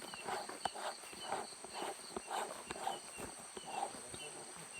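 Footsteps walking on a path at about two steps a second, over a steady background chorus of night insects such as crickets.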